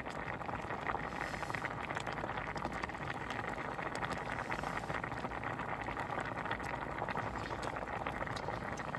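Soup with rice cakes and dumplings boiling in a pot: steady bubbling with fine popping.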